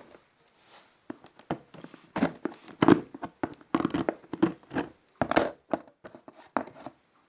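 Cardboard box and packing being handled and unpacked: irregular rustling, scraping and tearing, with short sharp knocks.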